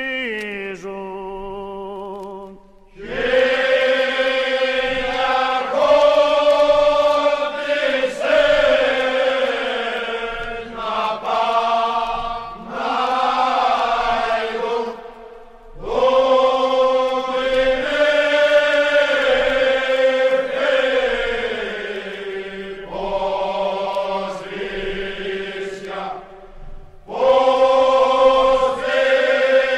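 Men's voices singing a Cretan rizitiko unaccompanied, in long drawn-out phrases. Short breaks between the phrases come about three seconds in, midway and near the end.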